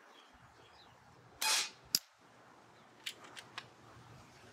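Kervan Arms AirBoss K2 unregulated PCP air rifle, fitted with a moderator, firing one shot: a short report about a second and a half in, a sharp crack about half a second later, then a few light clicks about a second after that.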